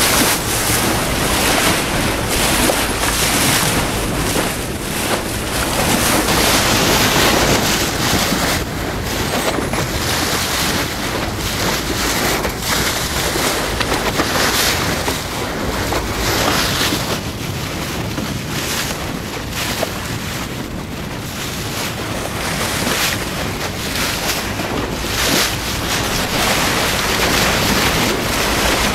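Water rushing and splashing past a moving boat's hull, with wind buffeting the microphone in gusts.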